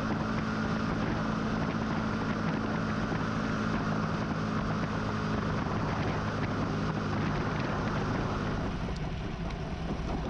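Motorcycle riding along a road, its engine running steadily under wind and tyre noise picked up by a camera mounted low beside the front wheel. The wind noise eases about nine seconds in.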